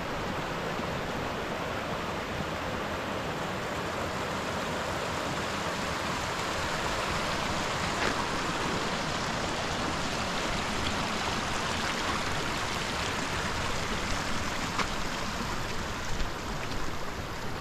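Small mountain creek running over rocks: a steady rush of water.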